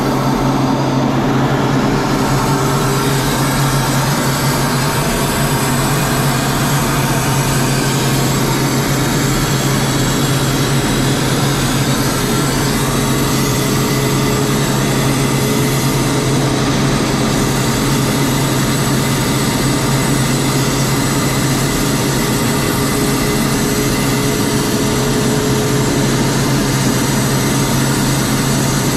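Steady cockpit noise of an aircraft in flight: a constant low engine drone with a few steady higher tones, under an even rush of air over the canopy. The sound does not change.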